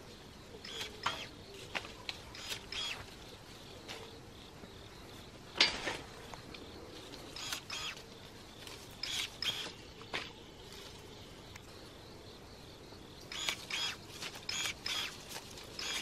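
Battery-powered electric pruning shears snipping through apple shoots and leaves: short, sharp snips in irregular clusters, the loudest about five and a half seconds in.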